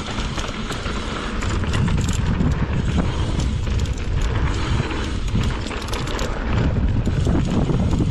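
Wind rushing over the microphone during a mountain bike ride down a dirt trail, with a low rumble and the rattle of the bike over rough ground: many small sharp knocks and clicks.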